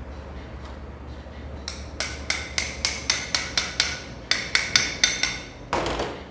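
Hammer blows on metal parts of a car shock absorber being assembled: two quick runs of ringing metallic strikes, about four a second, with a short pause between them, then a brief rasping burst near the end. A low hum runs underneath at first.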